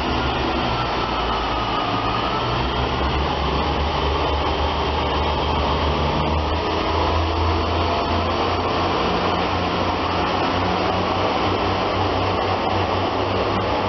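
Class 143 Pacer diesel multiple unit pulling away from the platform, its underfloor diesel engines running with a steady low drone under a wide hiss.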